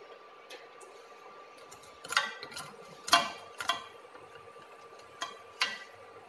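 A white plastic spatula knocking and scraping against a stainless steel pot while stirring and breaking up a block of instant noodles in liquid. There are about half a dozen sharp knocks in two clusters, starting about two seconds in. Under them runs a faint steady whine from the induction cooktop.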